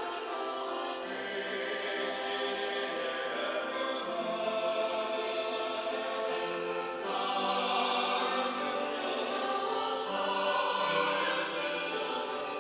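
Church choir singing a Sunday anthem, with long sustained chords that move every second or two and the occasional sharp consonant.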